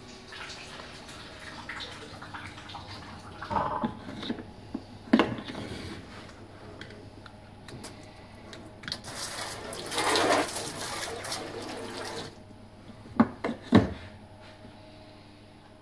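Water trickling and dripping inside a Rational SCC61 combi-steam oven as steam escapes from its open cavity, with a louder rushing spell around ten seconds in. A few sharp knocks, one about five seconds in and two near the end.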